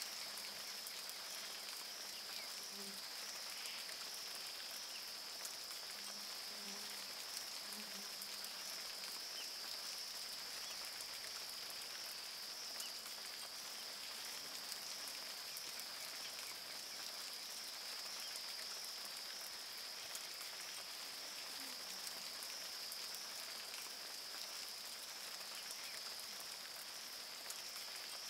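Rain falling on a river's surface: an even hiss with many small drop patters, over a steady high-pitched drone.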